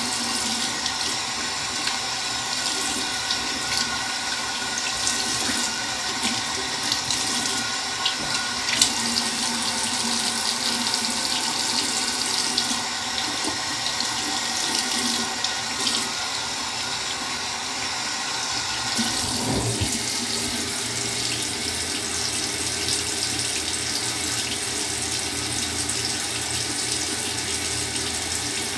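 Tap running steadily into a bathroom sink; its sound shifts lower about two-thirds of the way through.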